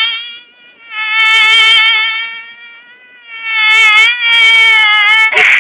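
Mosquito whine: a high, thin buzzing drone that wavers slightly in pitch and swells loud and fades away twice. A short burst of hiss cuts in just before the end.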